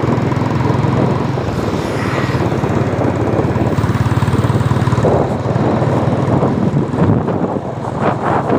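Motorcycle engine running at a steady speed while riding, a steady drone, with wind rushing over the microphone; the wind gets gustier near the end.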